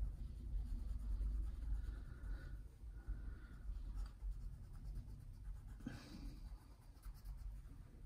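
A gray wax crayon rubbing back and forth on paper while coloring in: a soft, continuous scratchy scraping.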